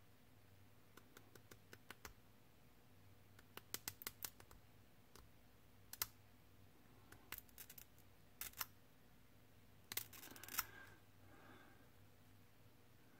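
Faint, scattered clicks and taps in small clusters: fingers and a small hand tool handling a plastic scale-model locomotive part.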